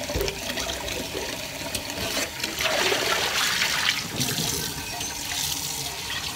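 Soapy water poured out of a ceramic crock pot insert into the sink, splashing; the pour is loudest about three seconds in.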